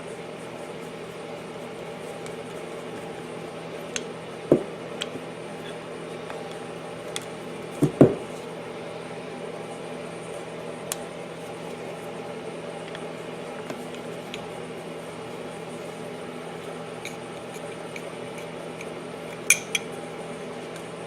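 Scattered small metal clinks and taps of screws and a screwdriver as the three screws holding the PCV breather plate are taken out of a small generator engine's valve cover. The loudest clink comes about eight seconds in, and a pair comes near the end, over a steady background hum.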